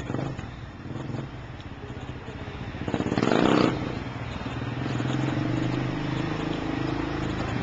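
Sport quad bike engine running, revved hard for under a second about three seconds in, then running on more steadily with a pitch that drifts up and down.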